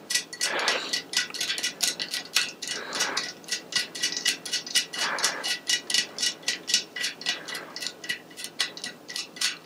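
Rapid light clicking, about five clicks a second, as a spoke nipple is turned by hand with a screwdriver onto a new spoke in a bicycle wheel's hollow-chamber rim.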